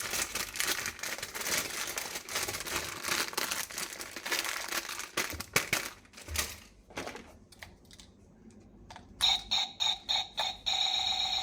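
Plastic packaging crinkling and rustling as a toy is unwrapped. After a short lull comes a run of sharp electronic beeps, and near the end a steady electronic tone pattern begins.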